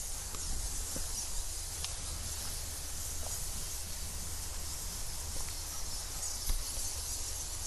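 Steady high hiss of insects in the tropical undergrowth, over a low rumble of wind on the microphone, with a few faint clicks of footsteps on rock.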